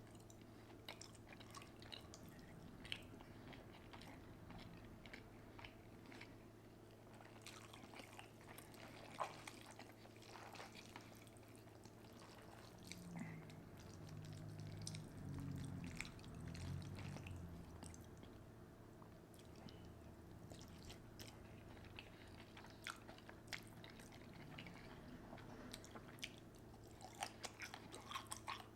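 Faint, close-miked chewing and wet mouth sounds of someone eating a seafood boil with ramen noodles: scattered small clicks and smacks, with a low murmur in the middle.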